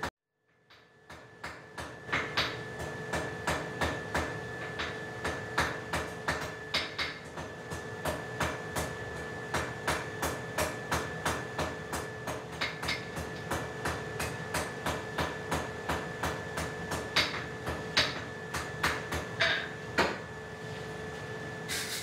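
Hand hammer striking hot round iron bar on an anvil in a steady run of blows, about three a second, drawing out a point on the tip of a forged heart.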